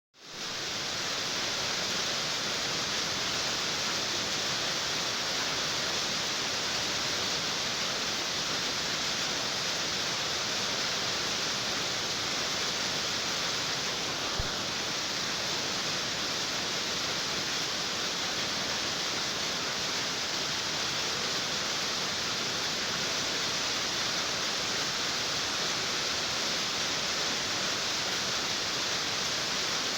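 Rain on a tin roof: a steady, even hiss of drops that fades in over the first second and keeps on without change, with one faint tick about halfway through.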